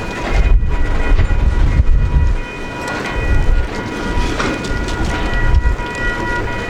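Diesel-hauled train passing close by: a heavy, uneven low rumble with a few steady high-pitched tones held over it.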